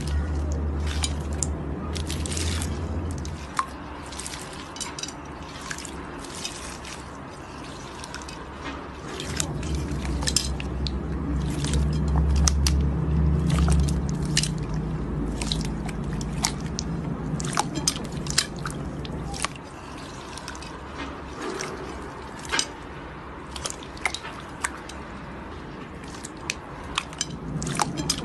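Slime being squeezed and worked by hand, giving many small, irregular wet clicks and pops over a low rumble.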